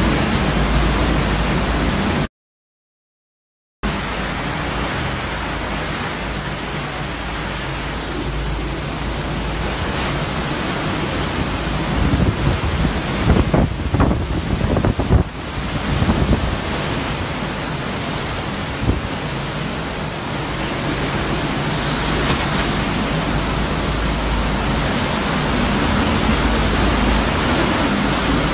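Hurricane winds of about 160 to 170 miles an hour with driving rain: a steady heavy rush that gusts harder and more unevenly around the middle. The audio cuts out completely for about a second and a half near the start.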